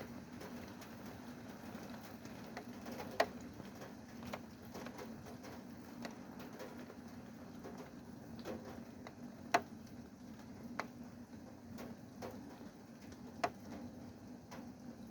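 Rain dripping: irregular drops ticking onto a hard surface at uneven intervals. A few single drops land much louder than the rest, over a steady low hum.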